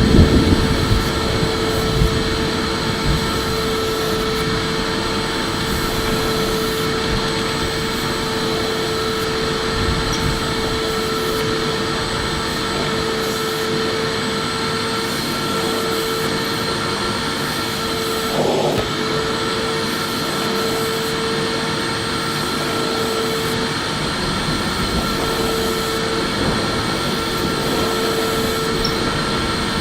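Electric vacuum cleaner running steadily: a rushing air noise under a constant motor whine, with a brief wavering in the pitch about 18 seconds in.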